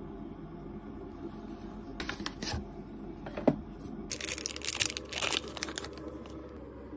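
A few clicks as a plastic tub of spread is handled, then its aluminium foil seal is peeled back with a spell of crinkling for about two seconds.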